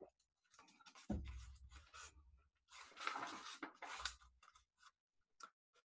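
Faint handling noise as a man drinks from a glass of water and sets it down: light rustling and scraping, with soft low thuds about a second in and again about four seconds in.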